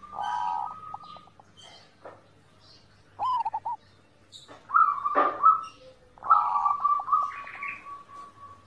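Zebra dove (perkutut) cooing: about four phrases, each a held note that breaks into a rapid stutter of short notes, the last phrase drawn out for about two seconds. Short high chirps from small birds sound between the phrases.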